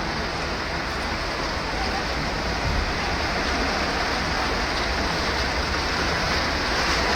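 Steady, even rushing water noise of torrential rain and floodwater. A siren fades out in the first second or two.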